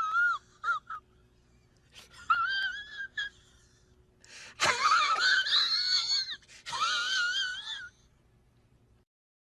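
A high-pitched, wavering, wheezy wail like a squeaky voice, in several bursts: short ones at first, then a longer one, and the longest, about three seconds, near the middle.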